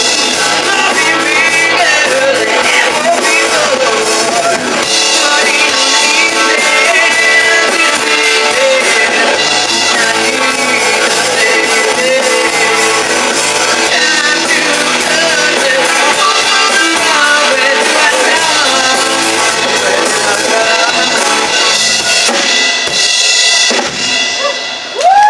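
Live rock band playing through a PA: overdriven electric guitar, bass guitar and drum kit with a woman singing lead. The music drops away near the end as the song finishes.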